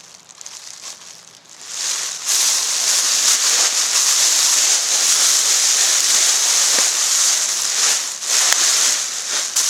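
Loud, continuous rustling and crinkling of Blizzard survival gear's crinkly material being handled, starting after a quiet second or so.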